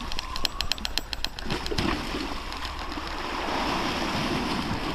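Fixed-spool fishing reel being wound in, with a rapid even clicking at about eight a second that stops about two seconds in. Waves then wash steadily against the sea wall below.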